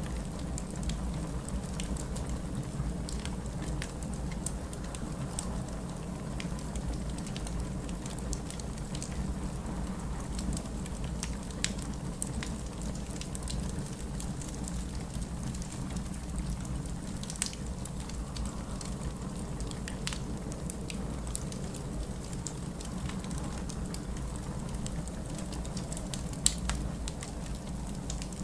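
Wood fire crackling in a fireplace: many small irregular clicks and a few sharper pops, the loudest near the end. Under it runs a steady low rumble.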